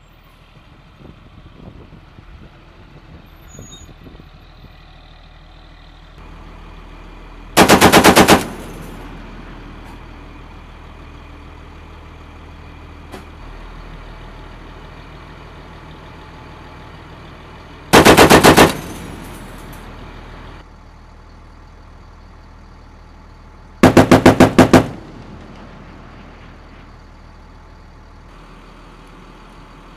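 A .50-caliber machine gun mounted on an MRAP vehicle firing three short bursts of about a second each, the second about ten seconds after the first and the third about six seconds later.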